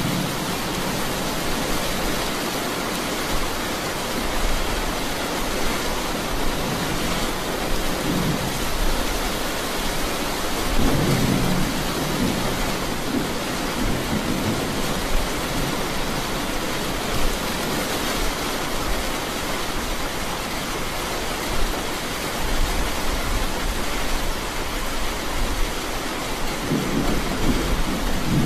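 Steady rain with low rumbles of thunder swelling up now and then: once at the start, a third of the way in, and again near the end.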